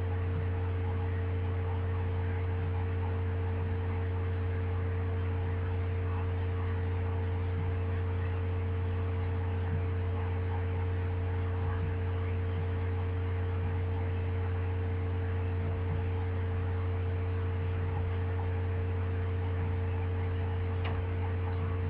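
Steady low electrical hum with an even hiss underneath, unchanging throughout; no other clear sound stands out.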